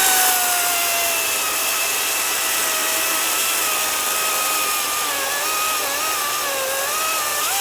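Battery-powered electric chainsaw running at full speed with a steady whine while cutting through a firewood log. The pitch wavers and dips in the second half as the chain bites, then the saw cuts off sharply near the end. The cut goes easily, "like butter".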